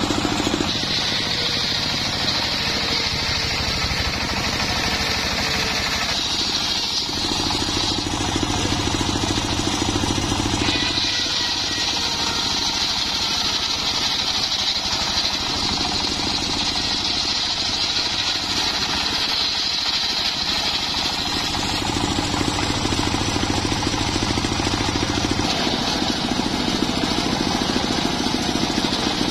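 Homemade belt-driven circular saw bench running steadily, its engine and spinning blade cutting acacia wood. The sound shifts several times as the cut changes.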